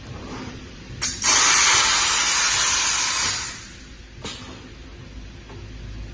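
Wire mesh welding machine working: a sharp click, then a loud hiss of air lasting about two seconds, then another click, over a low machine hum.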